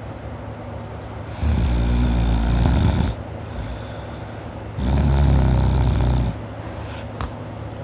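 A sleeping person snoring: two long snores of about a second and a half each, one starting about a second and a half in and the other near five seconds. A short sharp click just after seven seconds.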